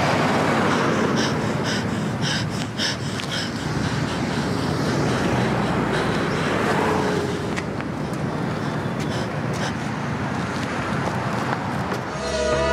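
City street traffic noise: a steady wash of passing cars, with a short run of sharp clicks about a second in. Music comes in just before the end.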